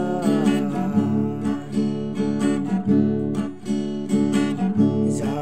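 Acoustic guitar strummed in a steady rhythm of chords, an instrumental break between sung lines; the tail of the last sung note fades out in the first moment.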